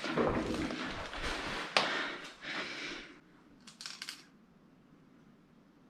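Scuffing and rustling with sharp clicks: one loud snap about two seconds in, then a quick run of three or four clicks near four seconds as the scuffing dies away.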